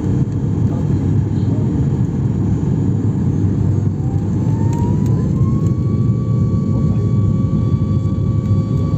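Airliner cabin noise during landing: a steady low rumble of jet engines and airflow, with an engine whine that rises in pitch about four seconds in and then holds steady.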